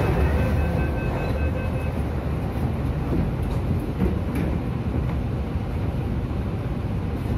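MTR train car standing at a platform, its interior giving a steady low rumble. A rapid run of short electronic beeps sounds during the first two seconds.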